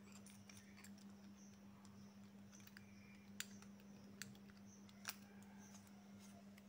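Faint small clicks and taps of a Sheaffer Sentinel ballpoint pen's metal cap section and barrel being handled and fitted together, the three sharpest about a second apart in the second half, over a steady low hum.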